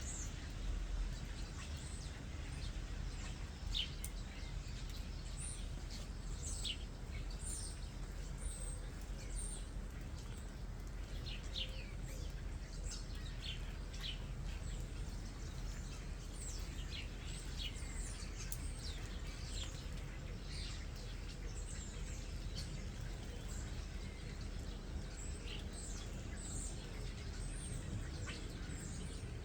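Common starlings chirping and whistling: many short high calls, several sliding down in pitch, scattered throughout over a steady low rumble.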